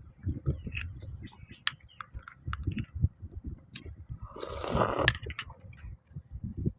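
Eating noodle soup: utensils clink and scrape against a bowl, with soft low thumps and a short rush of noise about four and a half seconds in.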